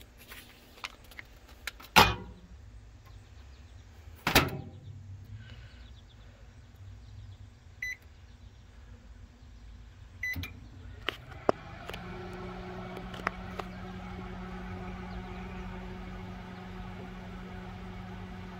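Furrion RV microwave oven: two loud knocks, then two short keypad beeps about eight and ten seconds in, then from about twelve seconds in a steady hum as the oven runs. The unit runs but does not heat food.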